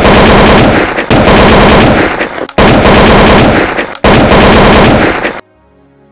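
Sound effect of machine-gun fire: four long bursts of rapid shots, very loud, each over a second long, stopping abruptly about five and a half seconds in.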